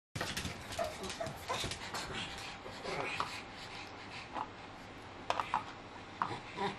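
Pugs whining excitedly for food in short high whimpers, several times over, with a spell of clicky scuffling in the first couple of seconds.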